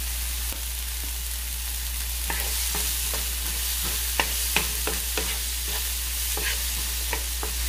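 Diced bell pepper, onion and tomato frying in a pan with a steady sizzle. From about two seconds in, a utensil clicks and knocks against the pan as the vegetables are stirred.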